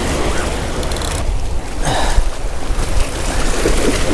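Wind buffeting the microphone over waves washing against the shore, a loud steady rumble and hiss.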